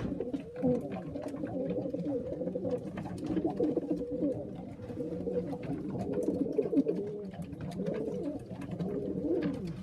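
Several racing pigeons cooing at once in the loft, making a continuous overlapping coo, with scattered light clicks and taps from the birds moving about.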